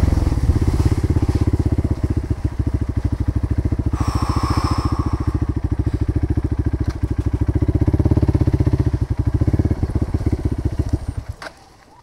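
Motorcycle engine idling with a fast, even pulse, then switched off about eleven seconds in. A brief higher-pitched sound rises over it around four seconds in.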